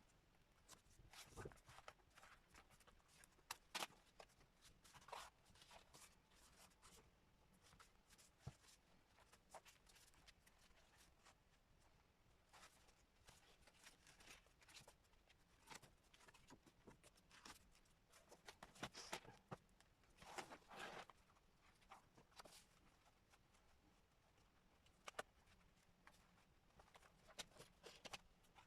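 Near silence with faint, scattered rustles and soft taps of paper and thread being handled while a journal is stitched by hand.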